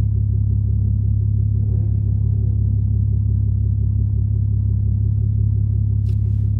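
Car engine idling with a steady low drone, heard from inside a car. Two brief clicks come near the end.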